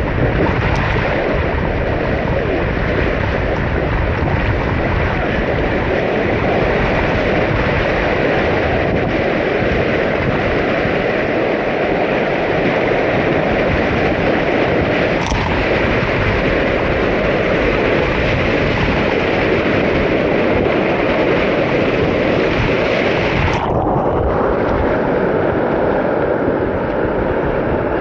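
Whitewater rushing through an artificial river course, a steady loud hiss, with wind buffeting the microphone. The hiss turns suddenly duller near the end.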